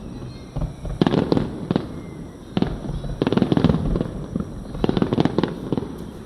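Aerial fireworks bursting: a series of sharp booms, each trailing off in crackle. A quick run of bursts comes about three seconds in and another about five seconds in.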